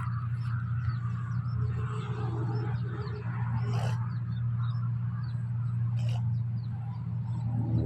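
New Holland 1545 combine harvester running steadily under load while harvesting rice, a deep engine hum with the threshing machinery's rush over it. Two short knocks come about four and six seconds in.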